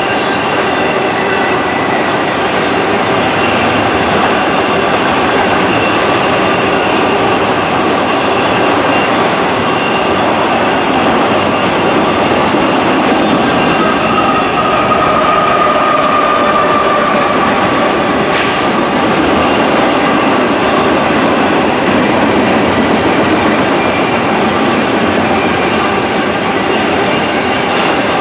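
Canadian Pacific double-stack container train rolling past steadily, wheels running on the rails with a thin, steady squeal from the wheels on the curve, strongest about halfway through. A mid-train locomotive goes by near the middle.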